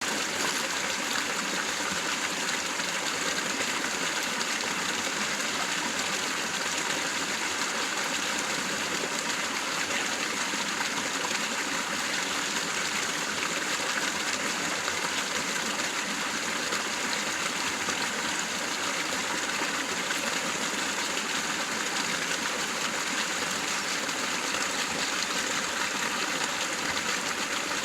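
River water flowing steadily, a continuous even rushing hiss without breaks.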